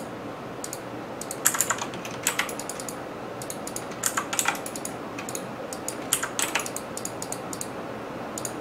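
Computer keyboard being typed in short bursts of a few keystrokes every second or two, over a steady low hiss.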